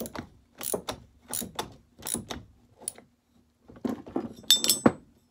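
Ratchet wrench worked back and forth in short clicking strokes, threading a part down onto a chainsaw crankshaft. The strokes come about every 0.7 s, pause briefly, then pick up faster and louder near the end with a sharp metallic clink.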